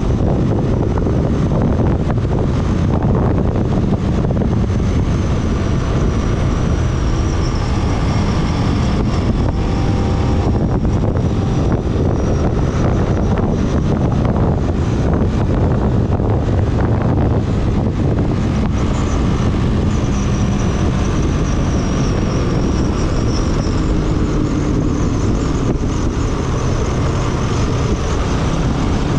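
Kawasaki ER-6n's parallel-twin engine running steadily at highway speed, about 110 km/h, mixed with wind rushing over the microphone.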